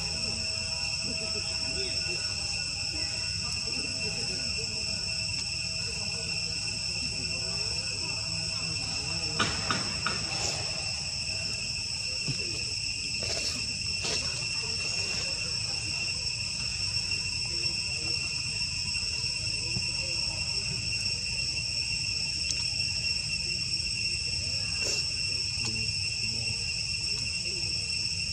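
Insects shrilling in a steady, high-pitched chorus over a low, even rumble, with a few brief clicks, the loudest about ten seconds in.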